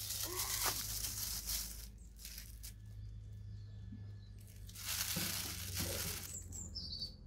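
Hands crumpling and tearing a crinkly wrapper over a metal barbecue grill, in two spells with a quieter pause between.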